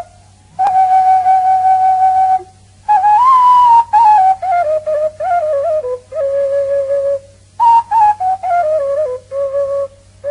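Background music: a solo flute-like melody, one note at a time, in phrases with short pauses between them. It opens on a long held note, then moves up and down in short stepping notes.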